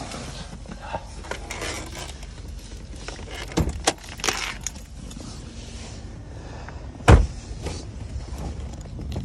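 Clicks and rattles from pulling the hood release lever under the dash of a 1999 Chevrolet Corvette, then one heavy thump about seven seconds in, over a steady low background rumble.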